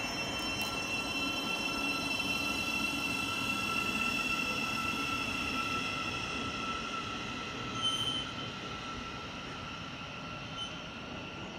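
Electric multiple-unit train moving away along the track, a steady high whine over rumbling wheels, slowly fading. A short high squeak about eight seconds in.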